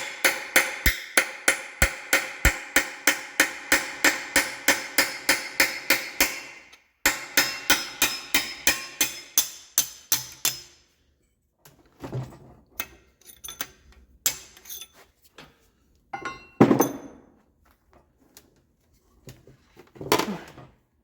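Rapid hammer blows, about four a second, driving a stuck pin out of a Kohler K321 engine block, each strike ringing like metal on metal. The hammering breaks off briefly, resumes, and stops about halfway through, followed by scattered clanks and knocks of metal parts being handled.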